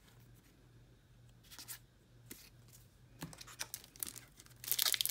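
Trading cards being handled, with a few light clicks and rustles, then a sealed booster pack's wrapper torn open with loud crinkling near the end.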